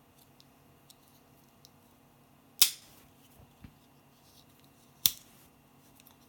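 Victorinox Voyageur 84mm Swiss Army knife: two sharp snaps about two and a half seconds apart as its tools are worked against the backspring, with faint ticks of handling in between.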